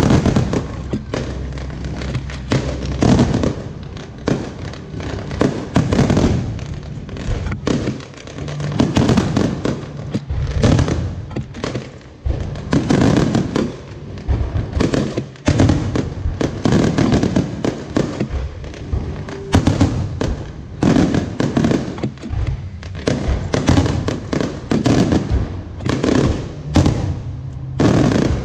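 Fireworks display: a dense barrage of bursting shells, several bangs a second without let-up.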